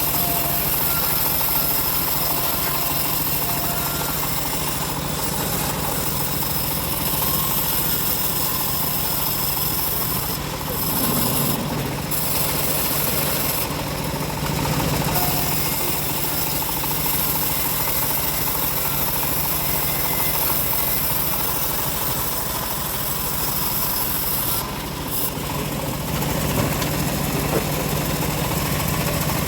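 Homemade bandsaw sawmill running steadily with a continuous mechanical drone and vibration, sawing a teak log.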